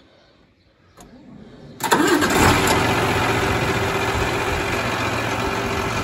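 Allis-Chalmers 8070 tractor's six-cylinder diesel engine starting: it catches suddenly about two seconds in and settles into a loud, steady run.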